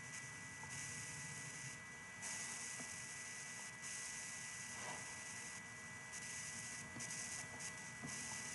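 Faint background hiss and electrical hum from an open call microphone, with a steady high whine; the upper hiss drops out briefly several times.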